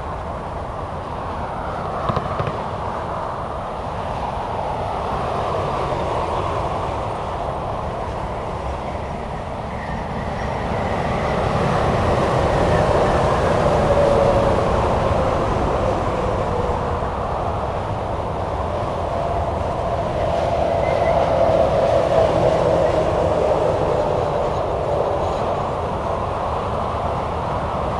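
Steady highway traffic: tyre roar of cars and trucks passing at speed on a multi-lane turnpike. It swells twice, about halfway through and again near the end, with a faint falling tyre whine as the loudest vehicles go by.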